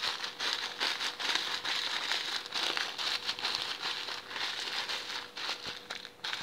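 Sealed Mie Sedaap Goreng instant-noodle packet being squeezed and kneaded by hand: continuous crinkling of the plastic wrapper with crackling as the dry noodle block inside is crushed to pieces.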